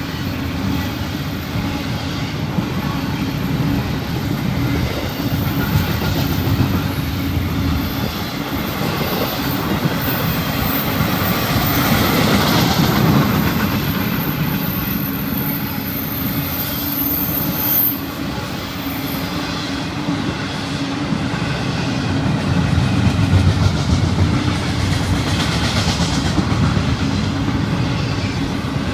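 Florida East Coast Railway intermodal freight train's double-stack container cars and trailer flatcars rolling past, a steady rumble of steel wheels on the rails.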